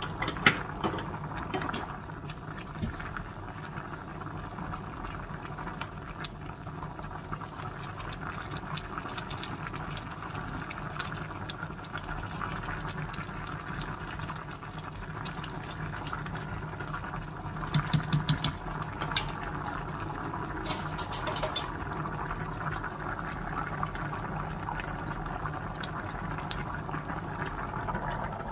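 Pork stew bubbling at a steady boil in an enamelled pot, over a low steady hum. A few clicks and taps sound near the start and again about two-thirds of the way through, as a spoon is worked in the pot.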